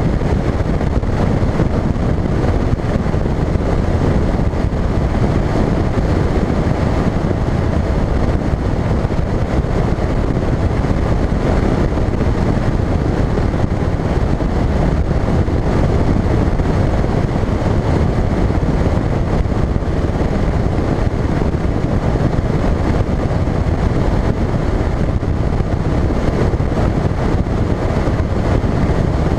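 A Phoenix bass boat's outboard motor running steadily at speed, mixed with wind noise on the microphone and the hull running over the water.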